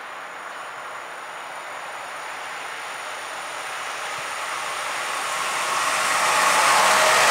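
Siemens Vectron electric locomotive (DB Cargo X4EC) hauling a container freight train, approaching at speed without stopping. The rolling and running noise grows steadily louder as it nears.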